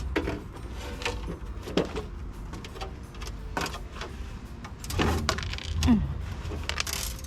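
Small screws and metal and plastic parts of a treadle chicken feeder being handled and fitted during assembly: scattered light clicks, clinks and knocks at irregular intervals, with a few louder knocks about two-thirds of the way through.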